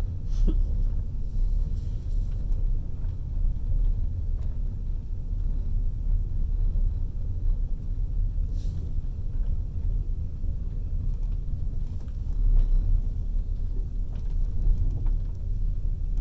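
Passenger train running along the track, heard from inside the carriage at the window: a steady low rumble with a few faint clicks.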